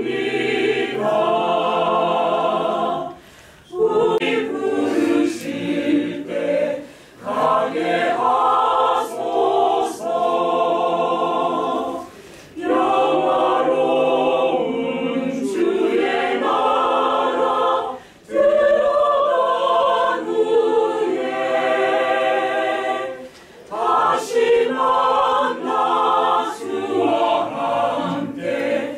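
Mixed choir of men and women singing a hymn in long phrases, with brief pauses for breath every few seconds.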